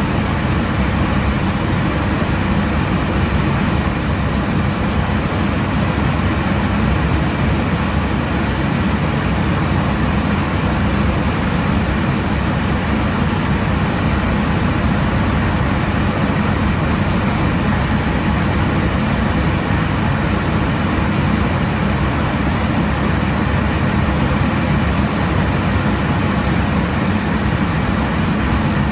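Steady in-flight aircraft noise at cruise altitude: a constant low-pitched drone of engines and airflow that does not change in level or pitch.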